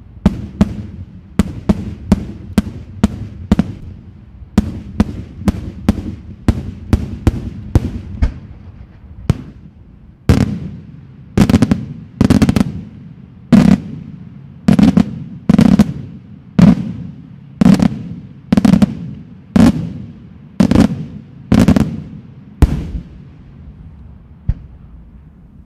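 Daytime aerial fireworks bursting in a string of sharp bangs, about three a second at first, then louder bangs about one a second from around ten seconds in, stopping a couple of seconds before the end.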